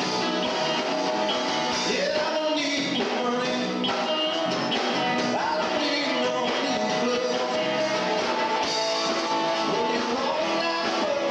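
A rock band playing a song live, with pitched melodic lines that bend up and down over a steady beat.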